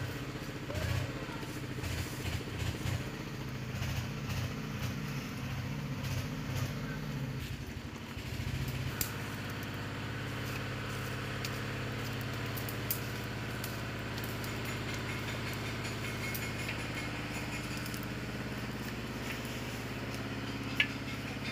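An engine running steadily with a low hum, uneven for the first eight seconds or so and then even, with light clicks scattered over it.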